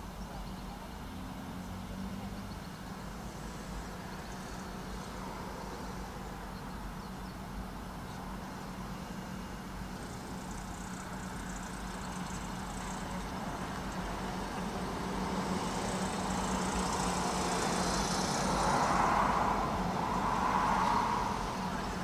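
Road-vehicle noise over a steady low hum, growing louder over the last several seconds as a vehicle comes close.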